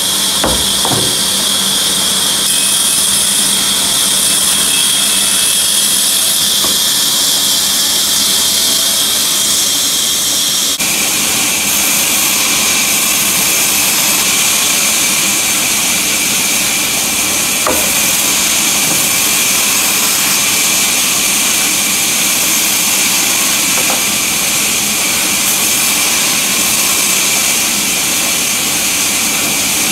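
Band saw running steadily while resawing willow blocks into cricket bat clefts: a loud, continuous whine of blade and motor cutting wood. Its tone changes abruptly about eleven seconds in.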